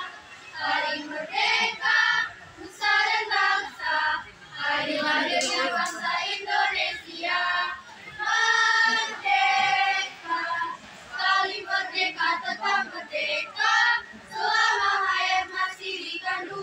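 A ninth-grade girls' school choir singing together, phrase by phrase with short breaks between lines.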